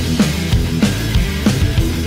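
Background rock music with a driving drum beat and a heavy low end.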